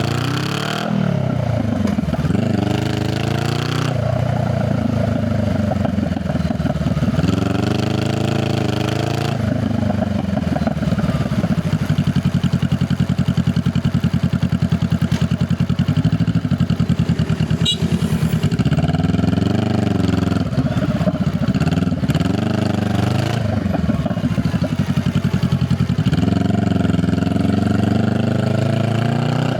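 Honda Rebel 500 parallel-twin motorcycle engine and exhaust under way, the note rising as it accelerates and dropping as it eases off, several times over. Through the middle it holds a steadier cruising pitch.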